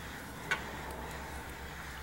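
A single short, sharp click about half a second in, from a watch movement being handled and turned in its metal movement holder, over a steady low hum.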